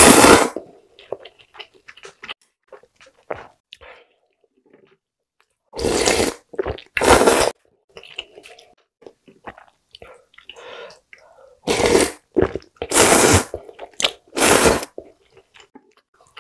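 A person eating seafood ramyeon close to the microphone: a noodle slurp ends just at the start, soft chewing follows, and from about six seconds in come five loud slurps of noodles and broth with quiet chewing between them.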